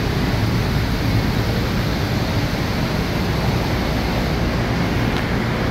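Steady, even machinery and ventilation noise filling a kayak rotomoulding factory floor, with no distinct knocks or tones standing out.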